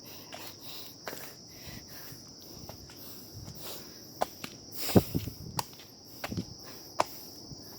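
Footsteps of hikers walking up a hill trail, a scattering of scuffs and knocks, with a steady high insect chirring behind them.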